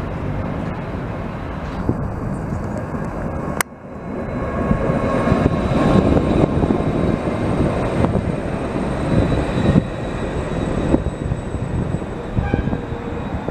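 Alstom Citadis low-floor electric tram passing close by: a rolling rumble of steel wheels on rail, with a thin steady high whine over it. It follows an abrupt cut from quieter street sound about three and a half seconds in, and eases off near the end as the tram moves away.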